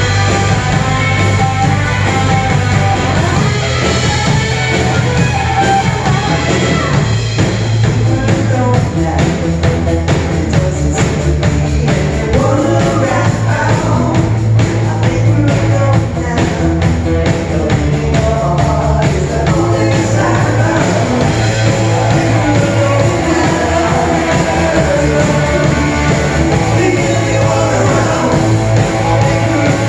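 Live rock band playing: a woman sings lead through a microphone over electric guitars and a drum kit.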